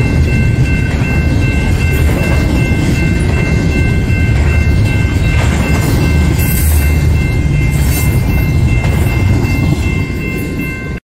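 Double-stack intermodal freight train rolling past at close range: a loud, steady low rumble of wheels on rail, with a steady high ringing of a few tones held over it. The sound cuts off abruptly near the end.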